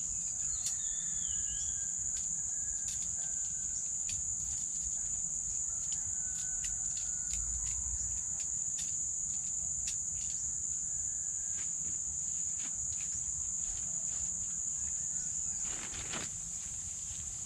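Night insect chorus: a steady, high-pitched trill that dips near the end, with scattered sharp clicks and a brief rustle near the end.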